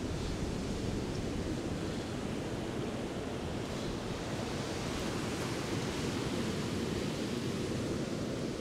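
Sea surf washing onto the beach, a steady rushing wash of waves with no single distinct break standing out.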